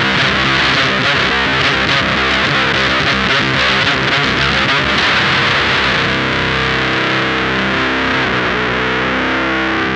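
Electric guitar played through the Mask Audio Electronics Screws octave fuzz pedal: a loud, steady, heavily distorted fuzz tone.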